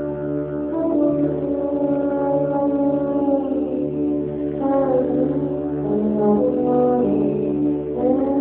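Trombone ensemble holding sustained chords over a low, pulsing didgeridoo drone. About halfway through, a trombone line starts sliding from pitch to pitch above the held chords.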